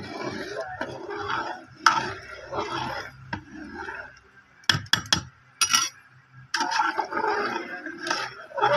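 A ladle stirring potato pulao in a large metal pot, with sloshing broth and the ladle scraping the pot. Several sharp knocks of the ladle against the pot come about five seconds in.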